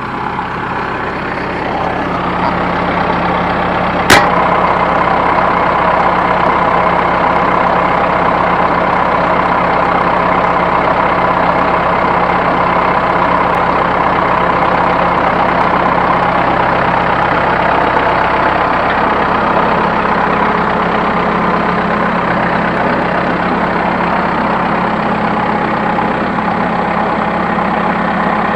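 A New Holland T1510 compact tractor's diesel engine runs steadily as it drives a New Holland 269 Hayliner square baler; its level builds over the first few seconds. There is a single sharp knock about four seconds in.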